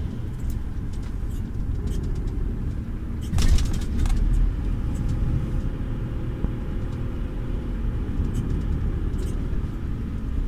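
Lorry cab interior while driving: the truck's diesel engine and road noise make a steady low rumble, with a few light clicks and a short, louder burst of noise about three and a half seconds in.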